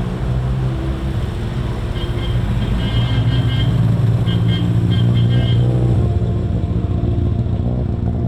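Classic vehicle's engine running with a steady low drone, loudest in the middle, with background music faintly underneath.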